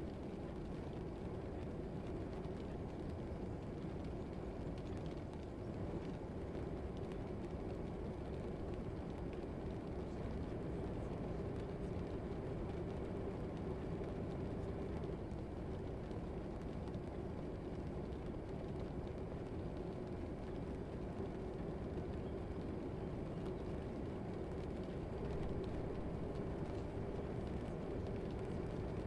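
Steady low background rumble with a faint constant hum underneath, unchanging throughout and with no voices.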